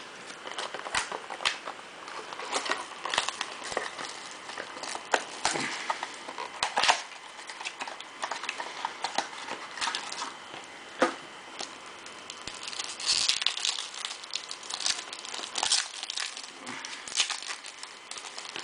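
Foil wrapper of a Topps Museum Collection baseball card pack crinkling and tearing as it is opened, with the cards inside clicking and sliding. There are many irregular sharp crackles, and a denser spell of crinkling about two-thirds of the way through.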